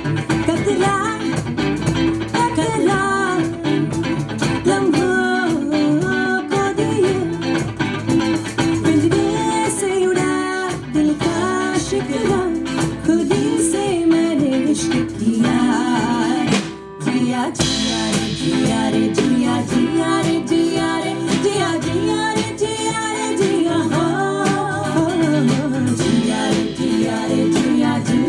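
Live band playing a song: guitars with a sung melody over them, and a short break in the sound about seventeen seconds in.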